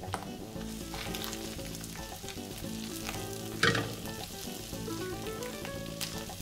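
Chopped garlic and onions sizzling as they fry in mustard oil, stirred with a spatula that scrapes through the pan; one louder scrape about three and a half seconds in.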